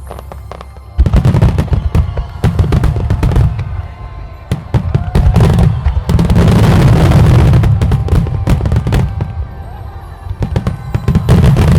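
Rapid volleys of aerial firework shells bursting, many sharp bangs and crackles in quick succession, in three loud waves with short lulls between, over music from loudspeakers.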